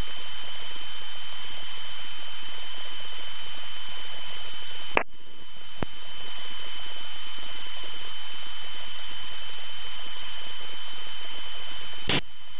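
Steady hiss of a light airplane's cockpit intercom audio in flight, with thin high steady tones. Sharp clicks about five seconds in and again near the end, each with a brief drop in level.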